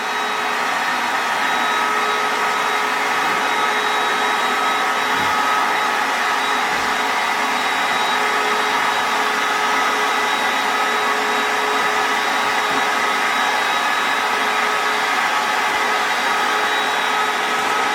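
Bestway air mattress's built-in electric pump running steadily, blowing air into the mattress to inflate it: an even whooshing whir with a constant hum.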